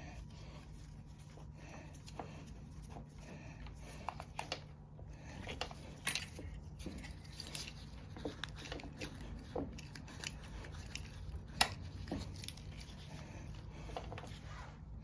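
Scattered small clicks, taps and light scrapes of hand tools and small metal engine parts being handled during repair work on a small mower engine, with one sharper click a little before the end, over a steady low hum.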